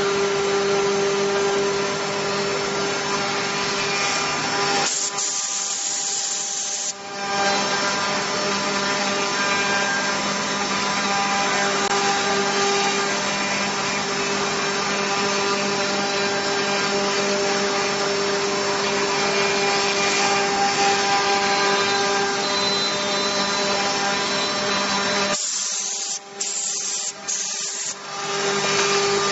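CNC router spindle running and cutting, a steady high whine over the rasping noise of the cut. The sound drops out briefly twice, once early and once near the end.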